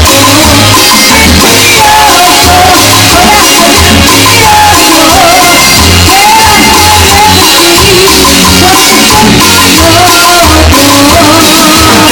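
Loud band music: drums and a repeating bass line with a melody line over them, played without a break.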